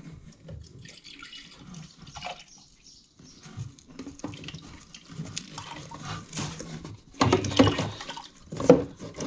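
Central heating inhibitor glugging out of an upturned plastic bottle into the open top of an Adey MagnaClean Micro2 magnetic system filter, dosing the heating system. The gurgling is uneven and gets louder near the end.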